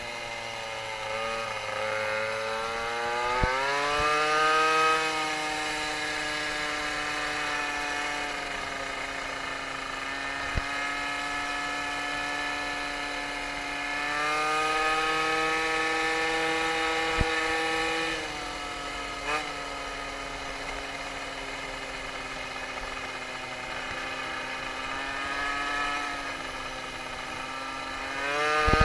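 Tuned two-stroke MBK 51 moped engine running under way. It revs up a few seconds in and holds a steady buzzing pitch, climbs again about halfway, then eases back and picks up once more near the end. A few short knocks come through.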